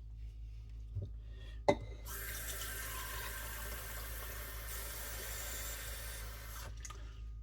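A sharp click, then a kitchen tap runs steadily for about four and a half seconds and cuts off suddenly, filling a cup with water for the rice.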